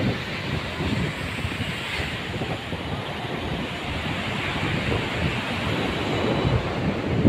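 Steady rushing noise of sea waves washing onto the shore, mixed with wind blowing across the microphone.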